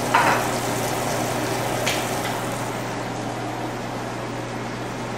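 French toast sizzling in a frying pan, with a light knock about two seconds in. Later the sizzle gives way to a steady, duller background hiss.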